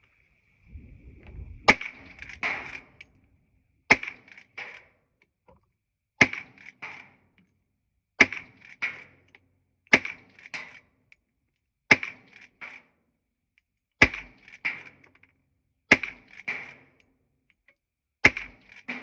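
Rossi R92 lever-action rifle in .357 Magnum fired nine times, about one shot every two seconds, with lever-cycling clacks after each shot as the next round is chambered.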